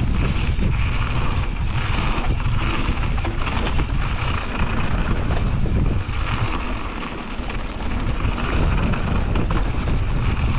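Heavy wind buffeting on a GoPro microphone during a fast mountain-bike descent, with the tyres rolling over a dirt trail and small rattles and ticks from the bike. The wind rumble eases for a couple of seconds past the middle.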